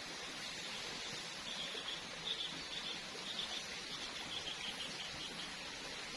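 A bird chirping a quick series of short, high notes over a steady background hiss.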